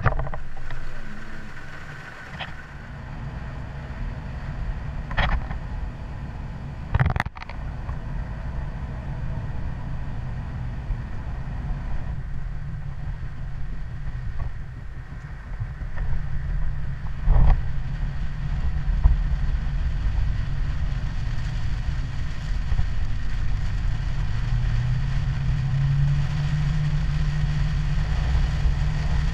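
Chevrolet Blazer driving on a wet road: steady engine and road rumble, with a few sharp knocks in the first half. Near the end the engine note rises as it accelerates.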